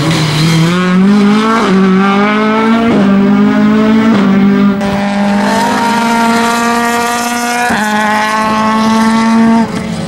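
Mk2 Ford Escort rally car engine at high revs under full throttle, pulling up through the gears. The engine note climbs and then drops at each quick upshift, three times in the first four seconds. The note jumps up about three-quarters of the way through and cuts off suddenly near the end.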